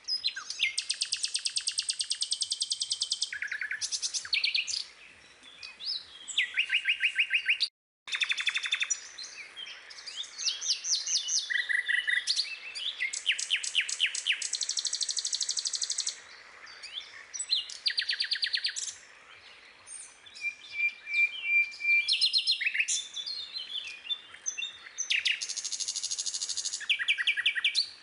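Songbird singing: rapid trills and runs of quick repeated chirps in phrases a second or two long, with a sudden brief dropout about eight seconds in.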